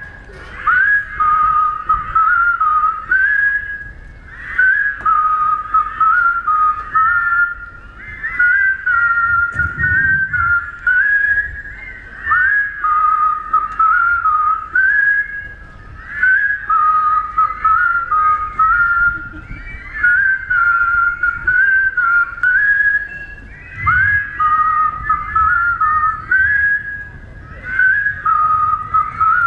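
A large crowd whistling the same simple tune together, in repeating melodic phrases about four seconds long with brief pauses between them.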